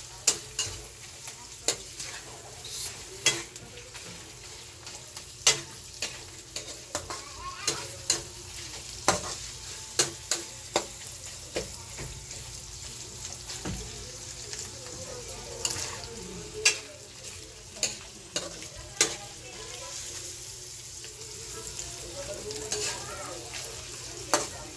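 Shredded chicken frying in a wok with a steady sizzle, while a metal spatula stirs it, scraping and clinking sharply against the pan at irregular moments, about once a second.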